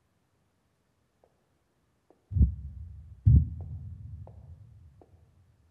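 Two deep booming thuds about a second apart, each dying away slowly with a long echo, in a film's dramatic sound design. Faint sharp clicks, like heels on a hard floor, come before and between them.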